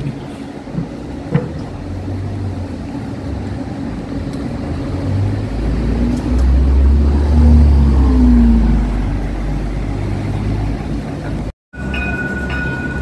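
Iveco articulated city bus passing close by, its engine running as it pulls past, loudest about six to nine seconds in with a short rising whine. Near the end the sound cuts out for a moment.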